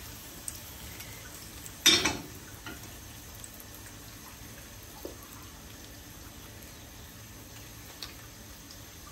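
A thin egg omelette frying gently in a small pan on a gas hob: a steady soft sizzle. One brief loud noise comes about two seconds in, and a couple of faint clicks follow later.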